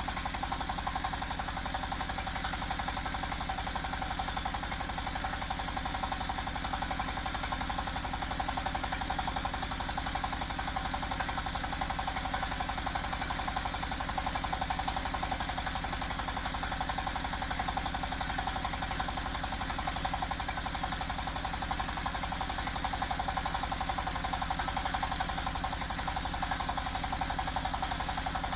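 Diesel engine of an HF260D hydraulic water-well drilling rig running steadily at a constant speed, with an even pulsing beat. It drives the rig's hydraulics and its integrated centrifugal mud pump.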